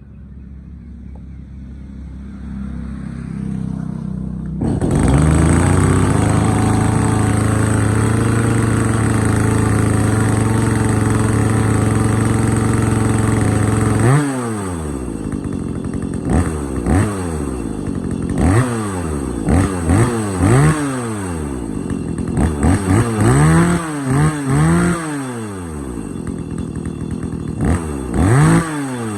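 Two-stroke chainsaw catching about four and a half seconds in, starting easily and running fast and steady on its starting throttle setting. About fourteen seconds in it drops to idle and is then revved in repeated short bursts.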